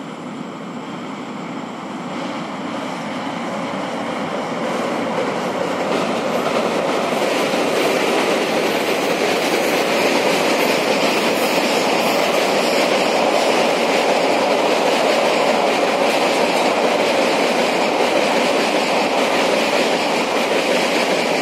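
Passenger train crossing a long steel girder railway bridge, its wheel and rail noise growing louder over the first seven seconds or so as it approaches, then holding steady as the coaches pass overhead.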